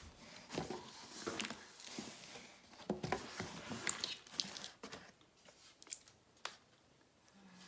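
Hands rummaging in a cardboard box, cardboard and packaging rustling and scraping with frequent sharp clicks and knocks, growing quieter after about five seconds with only a couple of clicks.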